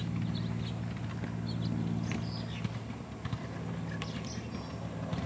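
Wind buffeting the camera microphone: a steady low rumble with rapid flutter.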